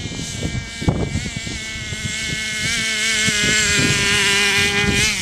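Radio-controlled car's motor running with a buzzing whine that wavers in pitch. It grows louder as the car approaches, and the pitch falls sharply near the end. Low wind thumps on the microphone run underneath.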